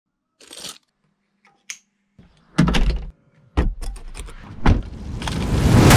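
A brief jingle of keys, then a car door opening and shutting with heavy thuds and sharp latch clicks, followed by a swell of noise that rises steadily toward the end.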